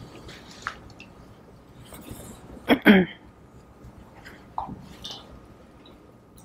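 A pause in a talk picked up on a handheld microphone: low room background with faint mouth clicks and breaths, and one short voiced sigh or murmur about three seconds in.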